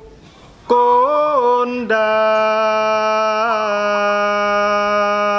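A man chanting a Javanese kidung in drawn-out tembang style. After a brief pause, a short phrase rises and falls in pitch, and from about two seconds in he holds one long, steady note.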